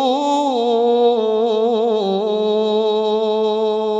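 Solo male voice chanting an Arabic maulid text, drawing one syllable out in a wavering, ornamented melody that settles onto a long held note about two seconds in.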